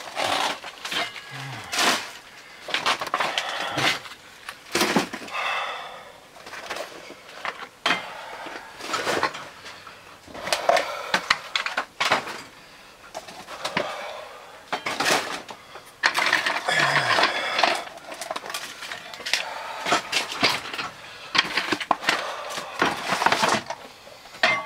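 Feet wading barefoot through about a foot of floodwater, splashing irregularly about once a second, with a cat's distressed cries and a person's labored breathing in between.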